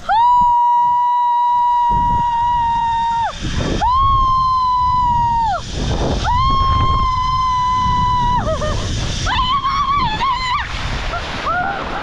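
A woman screaming while riding a zipline: three long held screams at one high pitch, then shorter wavering cries near the end. Wind rushes over the microphone.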